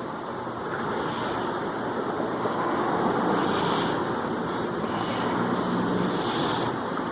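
Used engine and gear oil being poured from a drain pan through a funnel into a plastic bottle: a steady pouring noise that swells a little about a second in and holds through the middle.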